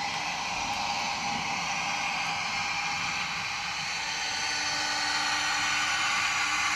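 DCC sound decoder in a Bachmann Class 55 Deltic model locomotive playing its Napier Deltic engine sound through the model's small speaker: a steady, hissy mechanical whir with faint steady tones, getting slightly louder over the last couple of seconds.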